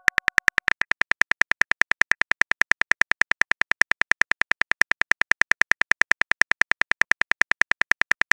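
Rapid, evenly spaced electronic clicks, about ten a second: a phone-keyboard typing sound effect of the kind laid under text messages being typed out.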